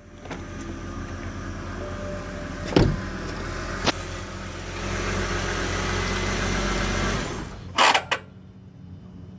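2007 BMW 328xi with its engine running at a steady hum that swells louder about five seconds in, then is shut off, the level dropping suddenly about seven seconds in. A few sharp clicks come through it, the loudest just after shut-off, and a fainter steady hum goes on after the engine stops: the odd after-shutdown noise the owner suspects is the transmission.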